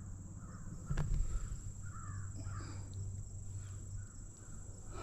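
Crows cawing a few times in the distance, with a single sharp knock about a second in.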